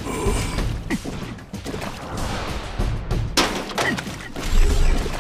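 Cartoon sound effects of falling raindrops: a run of splats and thuds as drops hit and splash, with one loud hit about three and a half seconds in, over background music.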